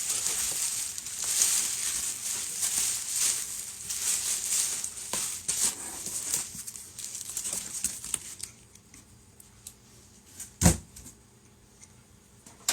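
A bag of 3D-printed model-kit parts being opened and handled: crinkling and rustling with small clicks for about eight seconds, then quiet, broken by a single sharp knock near the end.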